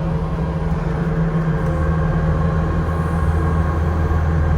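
Skid steer's engine running steadily with a low, even hum while it is driven.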